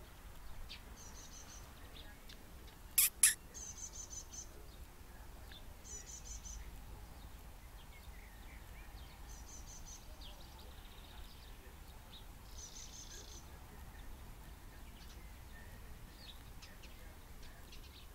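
Birdsong: short, high, rapid trills repeated every few seconds with scattered single chirps between them. Two sharp clicks about three seconds in stand out as the loudest sounds.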